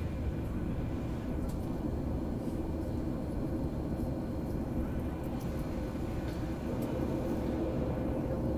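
Boeing 737-800 taxiing, heard inside the cabin: its CFM56-7B engines at idle give a steady low rumble with a faint steady hum on top.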